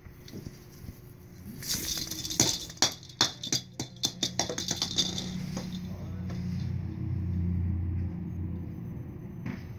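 Christmas tree branches and ornaments rattling and jingling as a cat climbs through the tree: a quick run of sharp clicks and jingles starting about two seconds in and lasting a few seconds, then a low steady hum.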